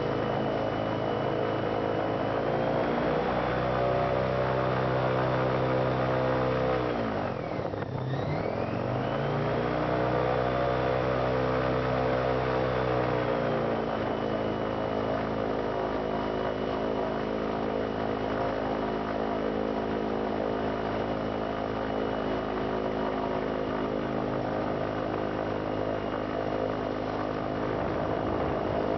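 Airboat engine and propeller running under way. The revs rise about two seconds in, drop sharply and pick back up around eight seconds in, then ease to a steady lower pitch after about fourteen seconds.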